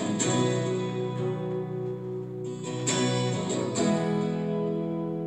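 Acoustic guitars strumming the closing chords of a song, with no singing: a few strummed chords, the last one, about four seconds in, left to ring.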